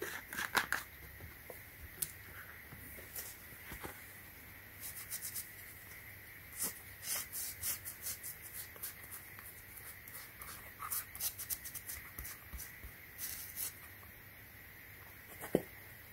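Faint scratching and small scattered clicks of handwork: a plastic cap being twisted off a bottle near the start, then a cotton ball rubbing old glue residue off a rubber slide sandal.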